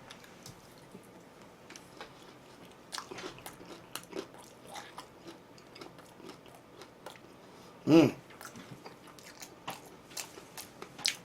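Close-up chewing and crunching: one person biting and chewing food, with many small crisp clicks. A short hummed voice sound about eight seconds in.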